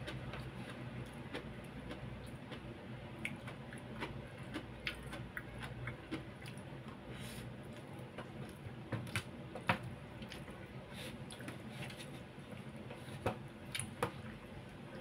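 Someone eating roast duck and rice: soft chewing, with scattered sharp clicks and scrapes of a plastic spoon against a plastic food box, a few louder ones past the middle and near the end.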